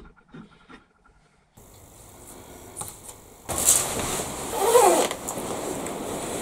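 Handling noises of a woodturner gearing up: a few light clicks and knocks as the metal tool rest is set against the log, then a louder stretch of rustling and clatter as a jacket is pulled on and a face shield is lowered.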